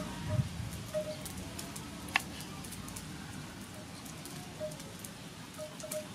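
Kitchen knife slicing limes on a wooden cutting board: scattered light taps as the blade meets the board, with one sharper click about two seconds in.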